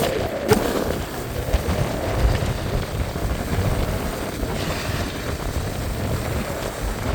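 Snowboard sliding over packed snow, a steady scraping rush mixed with wind buffeting the microphone, with a sharp knock about half a second in.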